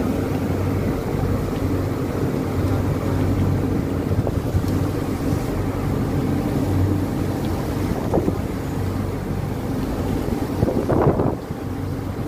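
A motor boat's engines droning steadily while the boat is underway, with rushing water from the wake and wind buffeting the microphone. A brief louder rush comes about eleven seconds in.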